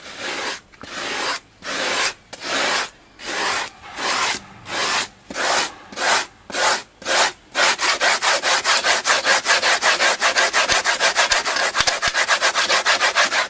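Blade sawing through insulation foam, a dry rasping stroke back and forth: long strokes about one every half second or so for the first half, then short fast strokes, about five a second, for the rest.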